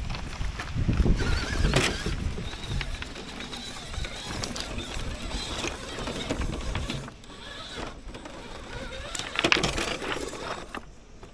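Yikong YK4083 1/8-scale RC crawler driving over loose beach pebbles: uneven crunching and clattering of stones under the tyres, loudest about a second in and again near the end.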